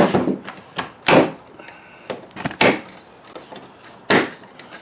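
Screwdriver prying and striking at the spring-loaded metal retainer in a Ford Edge side mirror's pivot: four sharp metallic knocks about a second and a half apart, with lighter clicks and scrapes between, as the tool slips off the part that won't pop out.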